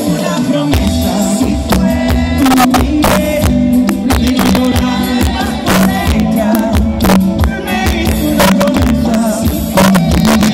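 A live band playing through a concert PA, with a singer and a steady drum beat, heard loud from among the audience.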